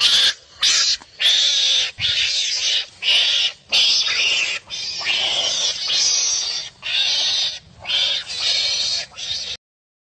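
Repeated harsh animal calls, about a dozen in quick succession, stopping abruptly near the end.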